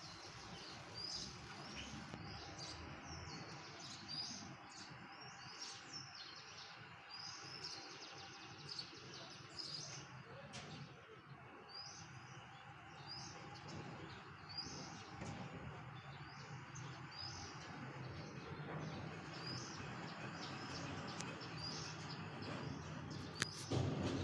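Small birds chirping, short high calls repeating about once a second over steady outdoor background noise, with a brief knock near the end.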